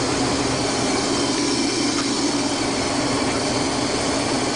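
Combine harvester running steadily while harvesting wheat, a constant mechanical drone with an even hiss over it, heard from inside the cab.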